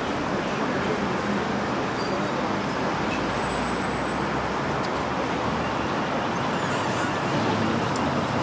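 Steady city street traffic noise: an even rumble and hiss of cars and buses running on the surrounding roads.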